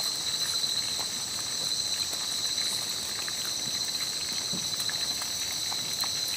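Steady chorus of night insects, a continuous high shrill in several pitch bands, with a few faint clicks.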